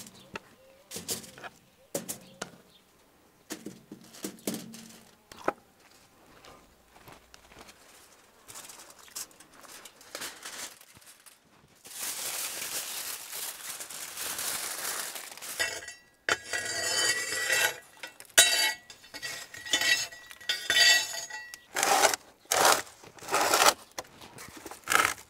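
Aluminium foil crinkling for a few seconds as it is wrapped around a pig's head, after scattered small clicks. Then a quick series of sharp metal clinks and clanks at a wood-fired oven, steel tools and its door knocking on the metal frame.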